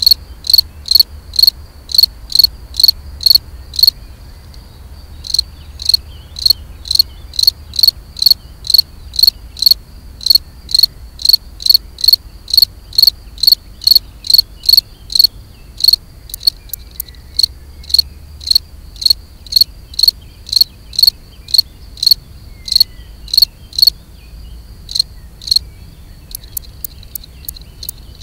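Male European field cricket (Gryllus campestris) singing its mating song: loud, clear, high chirps repeated evenly at about two a second, with a pause of about a second some four seconds in.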